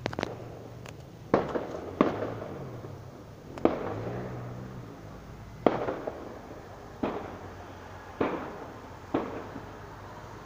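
Fireworks going off: a string of about nine sharp bangs at irregular intervals of roughly a second, each fading out in a short rumbling tail.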